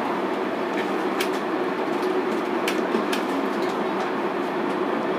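Whiteboard marker writing on the board, making a few short sharp scratches about a second in and again near three seconds, over a steady room hum.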